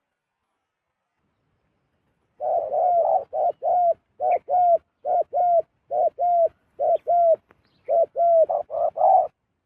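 Zebra dove cooing: a long run of short, clipped coos, two or three a second in pairs and small groups, starting about two seconds in.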